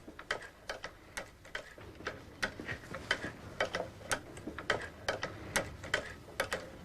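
Cam mechanism of an old cobbler's leather-sewing machine being worked: a steady run of sharp mechanical clicks, often in close pairs, about twice a second.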